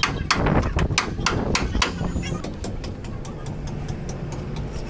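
Hammer blows on the sheet-metal body of a Maruti Omni van: loud strikes about three a second for the first two seconds, then lighter, quicker taps.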